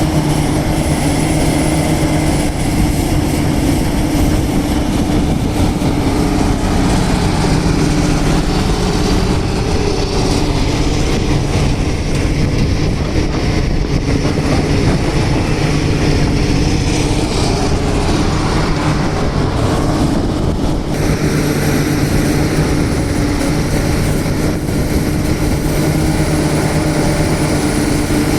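Heavy diesel engine running steadily at an even speed, as on a working backhoe loader.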